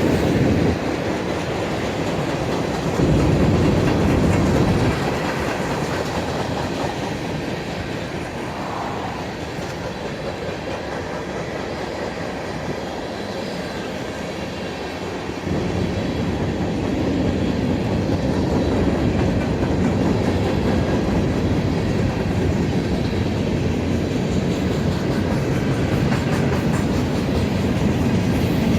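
Union Pacific manifest freight train rolling past on steel rails: a steady rumble that eases off for several seconds and then grows louder again.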